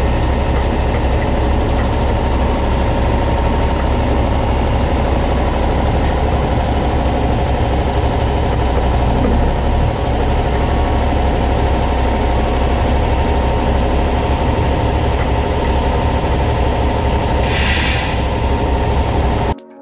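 Straight-piped Kenworth C500's Cummins diesel idling steadily, with a brief hiss near the end. The engine sound cuts off suddenly just before the end.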